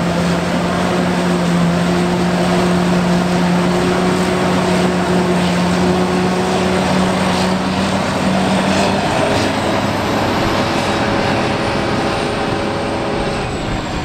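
Claas Jaguar 980 self-propelled forage harvester, with its MAN V12 engine, running under load while chopping standing corn: a loud, steady drone of engine and chopping machinery, its hum changing pitch about nine seconds in.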